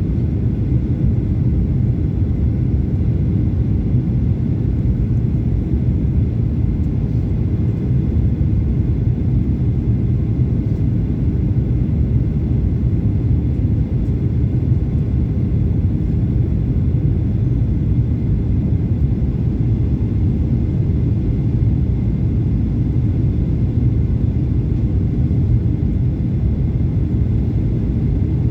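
Airliner cabin noise in flight: a steady, unchanging low rumble of the engines and airflow, with a faint high whine.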